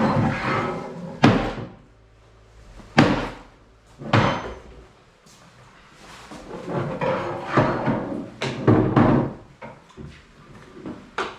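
Hammer blows smashing something apart: several heavy strikes spaced a second or more apart, with clattering and rattling between.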